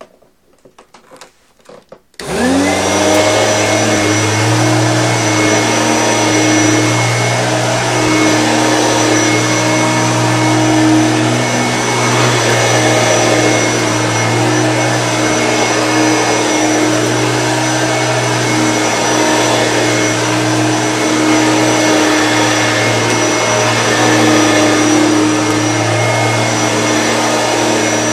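1991 Hoover Turbopower Freedom upright bagless vacuum cleaner switched on about two seconds in after a few light clicks. The motor spins up quickly, then runs steadily with a high whine.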